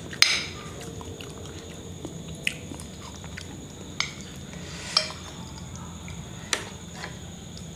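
Metal spoon clinking and scraping against a glass bowl of meatball broth as a bakso meatball is cut and scooped: about six sharp clinks spread out, the first the loudest, with soft chewing between.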